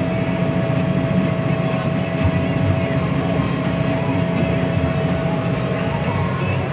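Steyr Profi 6125 tractor's diesel engine running steadily under load while pulling a plough, heard from inside the cab, with a steady whine on top of the low engine drone.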